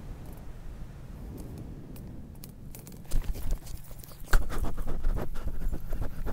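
Low wind rumble on the microphone. From about three seconds in, footsteps thud and crunch across dry grass as a paramotor pilot touches down and runs out his landing.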